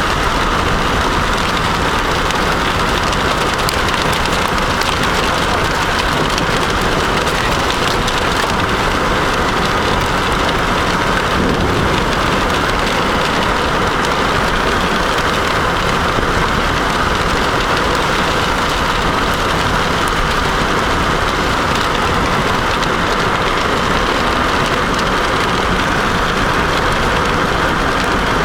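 Heavy rain falling steadily on a car during a thunderstorm, an even hiss with no let-up.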